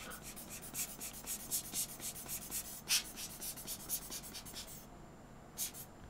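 Quick, scratchy strokes of a small hand tool brushed over a pocket watch's enamel dial to clear dust and fibres, stopping about five seconds in.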